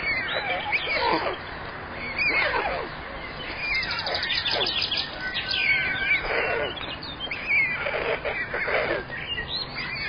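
Birds chirping and calling, with many short sliding notes and a few quick trills, repeated throughout.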